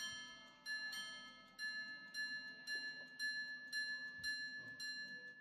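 Minute repeater of a 14k gold Charles Barbezat-Baillot Le Phare chronograph pocket watch striking the time on its gongs. The end of the quarters comes first as ding-dong pairs. Then seven single, evenly spaced strikes sound the minutes, about two a second, and the last strike rings away.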